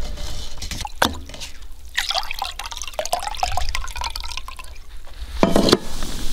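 Water dripping and trickling out of soaked rice as it drains in a metal mesh strainer, with quick little drips and a click about a second in. A short louder noise comes near the end.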